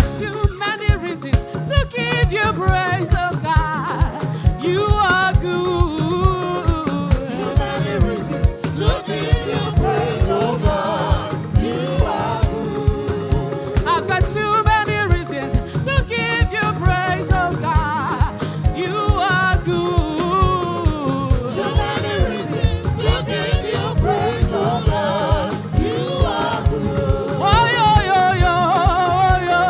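Live gospel worship music: a choir singing over a drum kit keeping a steady beat.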